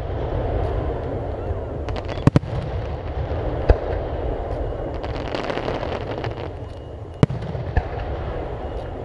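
Aerial firework shells bursting: sharp bangs, two in quick succession about two seconds in, one near four seconds and two more around seven to eight seconds, over a continuous low rumble.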